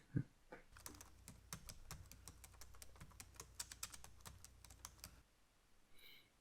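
Soft typing on a computer keyboard: a quick, irregular run of keystrokes that stops about five seconds in.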